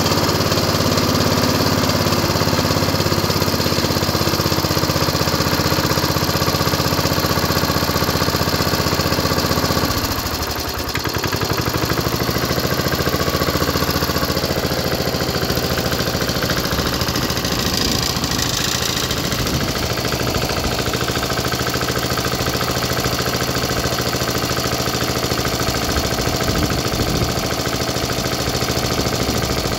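1976 Rover Prince 19 rotary lawn mower's single-cylinder engine running just after a cold start from long storage. About ten seconds in, the note dips briefly and the engine then runs less evenly. Its piston rings are a bit past it.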